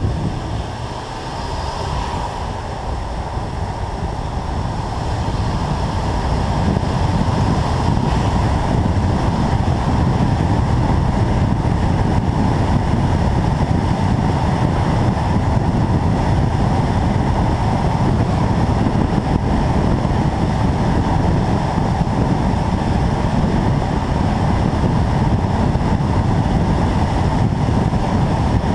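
A BMW M2 Competition driving on wet tarmac: a steady rush of tyre noise and wind buffeting the microphone, with no clear engine note above it. The noise builds over the first few seconds as the car gathers speed, then holds steady.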